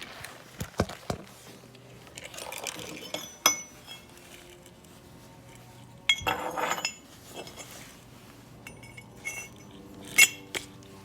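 Steel railroad spikes clinking and knocking against one another as they are handled and set in place: scattered sharp metal clinks with short ringing, a brief clatter about six seconds in, and one loud clink near the end.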